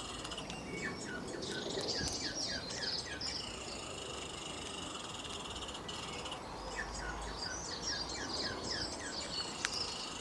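Two runs of rapid repeated chirping calls, about five falling chirps a second, over a steady high-pitched insect drone, with a single sharp click near the end.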